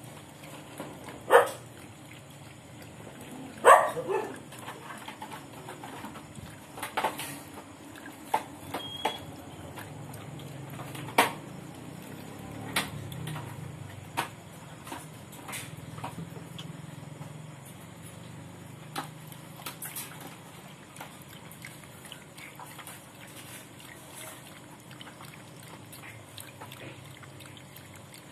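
A dog lapping milk from a steel pot: a steady run of wet lapping clicks, broken by irregular louder sharp clicks and knocks, the loudest about four seconds in.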